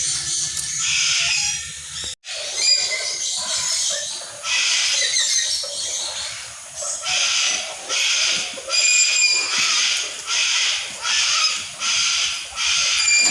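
Background music for about the first two seconds, cut off abruptly. Then harsh animal calls repeat in a steady rhythm, about one and a half a second.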